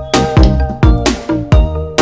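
Background music with a steady electronic dance beat.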